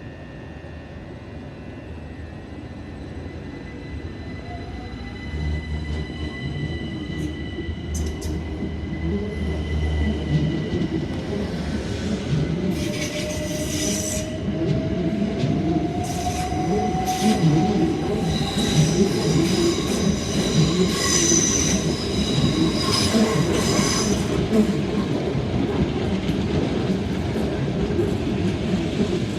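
Electric multiple-unit train running along the platform with its wheels squealing on the rails, growing louder as it comes in close. A rising whine is heard midway.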